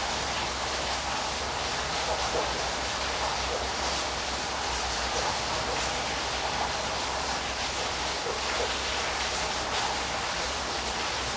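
Waterfall: falling water rushing steadily at an even level, with no breaks.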